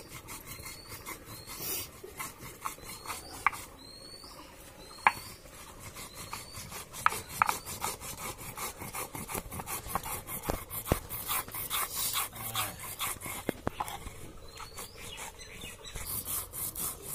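Stone roller ground back and forth over a flat stone grinding slab (sil-batta), stone rasping on stone as red chili or spice paste is crushed. The strokes are rapid and grow louder and more even about seven seconds in.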